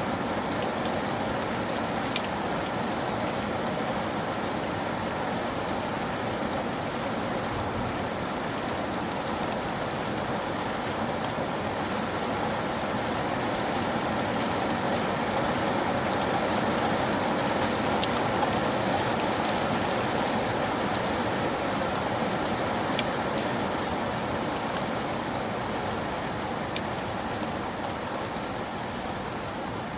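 Steady rain falling, an even hiss with a few sharper single drops ticking on a surface now and then. It swells slightly about halfway through.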